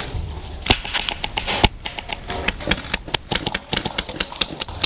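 Airsoft guns firing: a run of sharp, irregular clicking pops, several a second.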